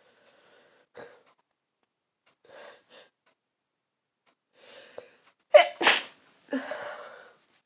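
A woman with a head cold sneezing. A few short faint intakes of breath come first, then one loud sneeze in two quick bursts about five and a half seconds in, followed by a breathy exhale.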